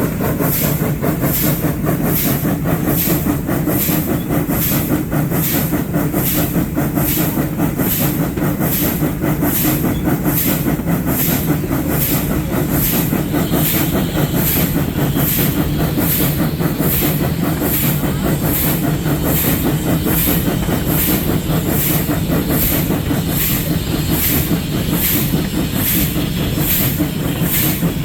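Arcade & Attica No. 18, a 2-8-0 steam locomotive, working along with steady, even exhaust chuffs from the stack, about three beats every two seconds, over hissing steam and the rumble of the train on the rails.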